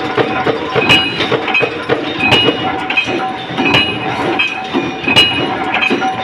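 Large punch press stamping out metal rings: a sharp strike with a metallic clink about every one and a half seconds, four times, over steady machine noise.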